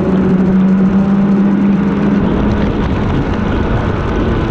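Snowmobile engine running at speed, loud and steady; a strong low engine tone is prominent for the first two seconds or so, then drops away under a steady rumble.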